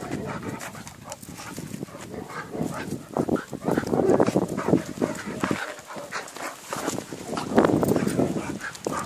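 A Staff and a Bull Terrier puppy play-fighting, making dog noises in uneven bursts, loudest about four seconds in and again near the end.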